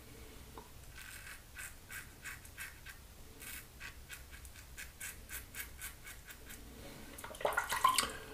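Double-edge safety razor cutting stubble through shaving lather: short scratchy strokes, about three a second, during an across-the-grain pass. A louder, rougher burst of sound comes near the end.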